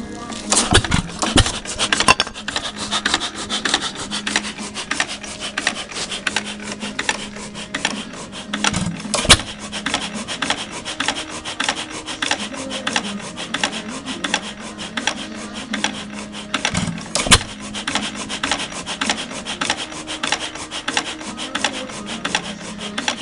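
3 hp Ideal vertical single-cylinder hit-and-miss engine with ignitor ignition running: a fast, even mechanical clatter while it coasts between firings, with a loud bang as it fires a few times in the first two seconds and again about 9 and 17 seconds in.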